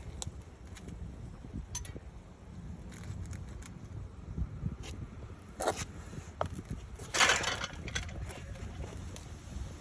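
Hand tools clicking and clanking against metal while working on a stuck rear wheel hub bolt, with a short scraping rattle about seven seconds in, over a low rumble of wind on the microphone.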